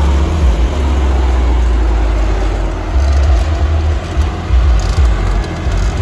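John Deere 5075E tractor's diesel engine running under load as it pulls a plough through the soil, heard up close, with a heavy low end that swells and drops unevenly.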